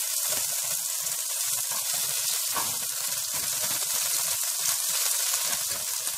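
Tomato paste sizzling steadily in hot oil in a wide pan, stirred with a wooden spatula.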